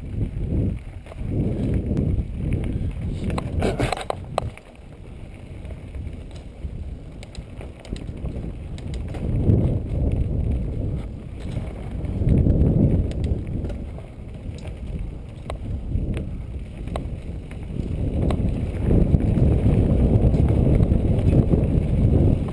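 Trek Rumblefish mountain bike descending a dirt singletrack at speed: wind buffeting the camera microphone and the tyres rumbling over the dirt, swelling and fading every few seconds. A burst of sharp rattling clicks from the bike comes about four seconds in, and fainter clicks are scattered through the rest.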